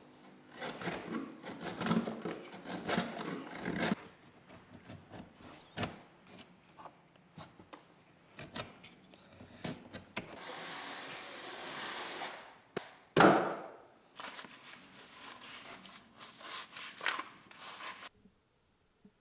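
Hand work with a knife and split spruce-root lashing on a canoe's wooden gunwale: irregular scraping, rubbing and small knocks, a steady shaving hiss for about two seconds from ten seconds in, and one sharp knock about thirteen seconds in. The sound cuts off about a second before the end.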